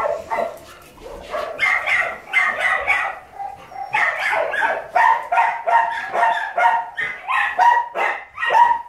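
A dog giving short, high-pitched yips and whines in quick succession, a few a second, coming thicker from about halfway through.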